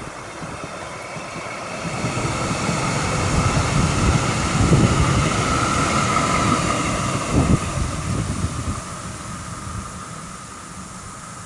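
Hannover TW 6000 light-rail car passing close by. Its rolling noise and a steady whine build up, are loudest in the middle with a couple of heavier thumps, then fade as it moves away.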